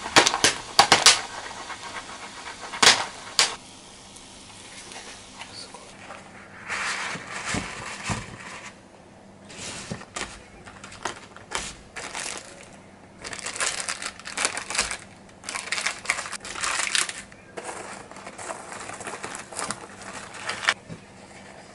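Popcorn kernels popping, irregular sharp pops that come in quick clusters with short gaps between them, over a faint steady hum. A few louder clicks and knocks come in the first few seconds.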